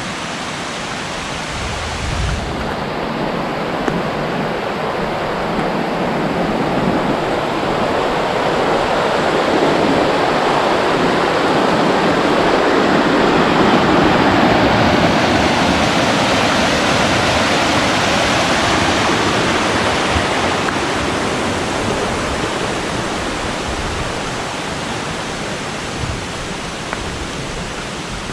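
Rushing water, a steady loud hiss that swells louder toward the middle and then eases off.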